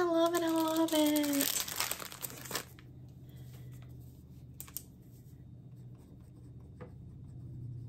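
Plastic crinkling as a diamond painting canvas in its plastic film and a strip of sealed bead packets are handled and laid on a table. It starts over a short drawn-out vocal sound, is loudest in the first two and a half seconds, then dies to faint rustles and a few light taps.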